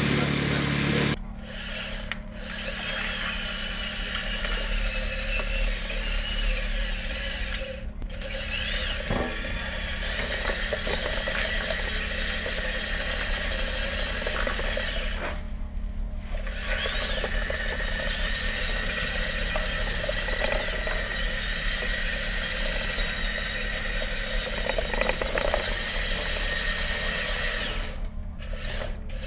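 Electric drive motors of a small tracked, tethered tunnel-inspection robot whining steadily as it crawls through a pipe. The whine stops briefly a few times and climbs in pitch as it starts off again. A louder low rumble fills the first second.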